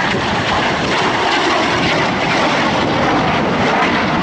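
Red Arrows BAE Hawk T1 jet at full power, its Adour turbofan making a loud, steady rushing jet roar as it pulls up through a low roll, the sound swelling slightly.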